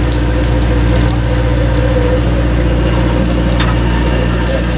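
A boat's engine running steadily, a constant low drone with a fixed hum, and faint scattered ticks over it.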